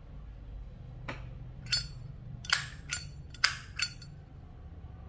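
Brass Zippo lighter handled: a faint click about a second in, then five sharp metallic clicks over about two seconds, as the hinged lid is flipped open and snapped shut.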